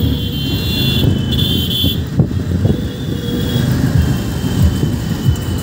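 Steady engine and road noise heard from inside an open-sided auto-rickshaw moving through city traffic, with motorcycles and cars passing alongside.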